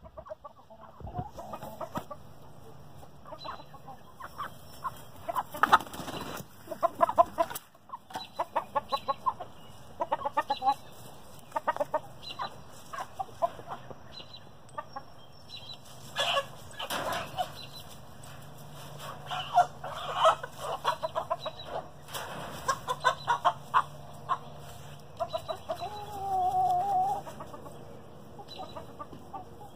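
Rhode Island Red chickens clucking in quick runs of short notes, with one longer drawn-out call near the end.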